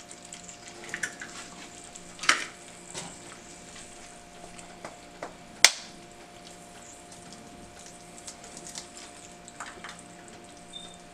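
Eggs being cracked one at a time into a square nonstick pan of melted butter, frying with a faint crackling sizzle. Two sharp cracks, about two seconds in and just before the middle, are shells struck against the pan's rim, over a faint steady hum.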